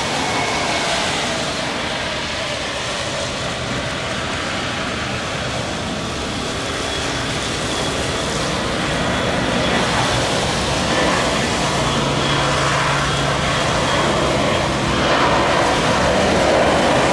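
Boeing 737-500's CFM56-3 turbofan engines at takeoff thrust as the jet accelerates down a wet runway: a steady loud rushing noise with a faint high whine. It grows louder near the end as the nose lifts off.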